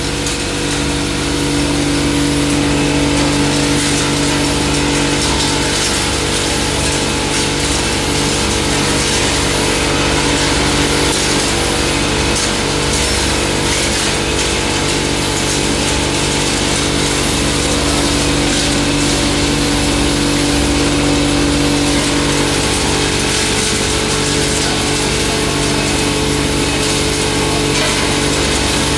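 Belt-driven hammer-mill pulverizer, with its electric motor and blower, running steadily while grinding dried turmeric fed in from the hopper. It gives a loud, even machine hum and whir with no change in speed.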